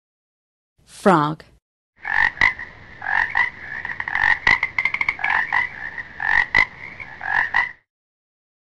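Frog croaking: a long run of quick, repeated croaks with short pauses, starting about two seconds in and stopping shortly before the end.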